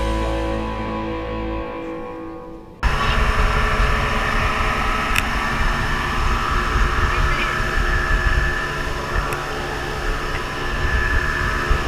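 Background guitar music fading out over the first few seconds, then a sudden cut to a speedboat running fast: a steady rush of engine, water and wind noise on the microphone.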